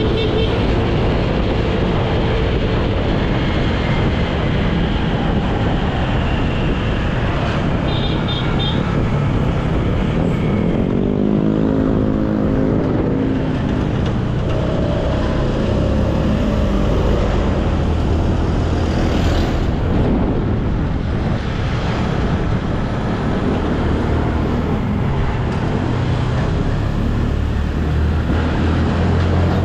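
Motorcycle engine running while riding on the open road, with wind rumbling on the microphone; the engine note rises and falls around the middle.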